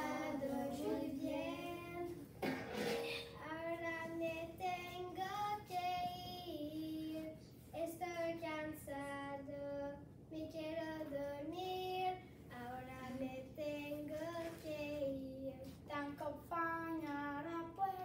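A child's voice singing a melody unaccompanied, holding each note briefly and moving up and down in steps, with short breaks between phrases.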